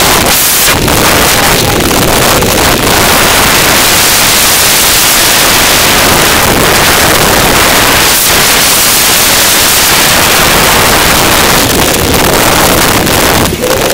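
Loud, steady wind buffeting and rumble on the microphone of a camera carried at speed along a mountain-bike trail.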